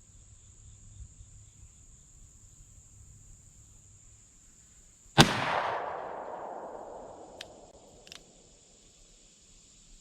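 A single shot from a Smith & Wesson .38 Special revolver about five seconds in, its report echoing and dying away over about three seconds, with two faint sharp ticks as it fades.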